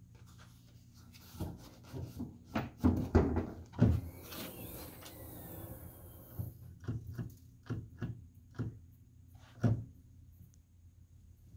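Clunks, knocks and rattles of a 2016–2020 Kia Sorento's hood and hood latch being worked by hand as the hood is released and raised. The loudest clunks come about three to four seconds in, followed by a brief hiss with a faint squeak, then scattered lighter knocks and one sharper knock near the end.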